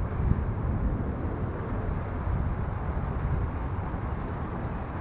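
Wind noise on the microphone, a low, uneven rush, with a few faint bird chirps about two and four seconds in.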